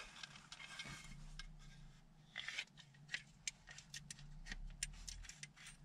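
Faint, irregular clicking and scraping of stones in gravelly soil, several clicks a second from about a second and a half in, as a small hand shovel digs at a metal detector signal.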